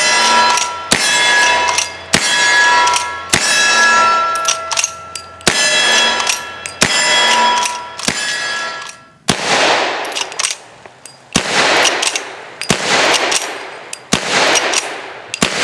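Henry lever-action rifle in .44-40 Winchester fired in quick succession, about one shot a second. For the first half each shot is followed by the ringing clang of a steel target being hit. In the second half the shots go on without the ring, each trailing off in echo.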